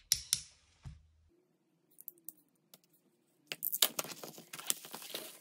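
A couple of sharp knocks as a hardcover diary is set down on a wooden desk, then, about three and a half seconds in, its clear plastic sleeve crinkling and crackling as hands work it open.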